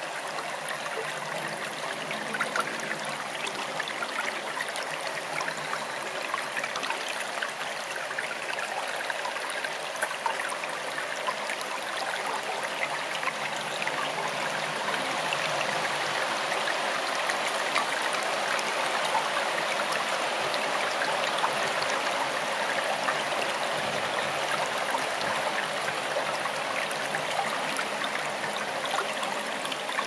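Forest stream flowing: a steady rush of water with many small splashes and trickles, growing a little louder about halfway through.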